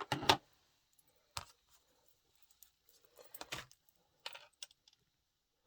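Scattered small plastic clicks and taps from an ink pad case being opened and handled, the loudest right at the start and a few more spread through.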